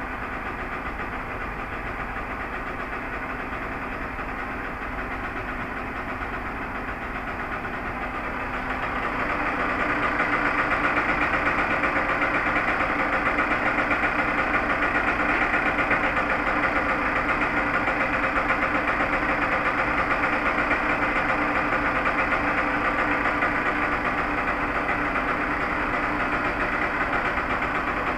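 Honda CR125 single-cylinder two-stroke engine running at idle after a top-end rebuild with a new piston. It runs steadily and grows louder about a third of the way in as the bike comes closer.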